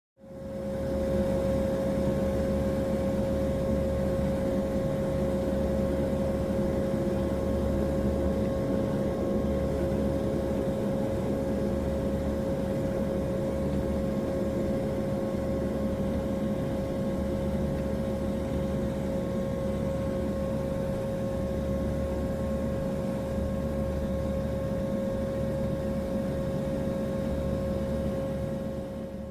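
Car running steadily at a constant pitch: a low rumble with a steady whine over it. It fades in quickly at the start.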